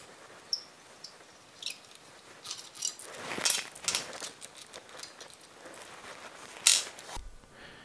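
Scattered light metallic clicks and clinks of an Allen key and loose screws being handled on top of a pump head. The clicks come thickest in the middle, with one sharper click near the end.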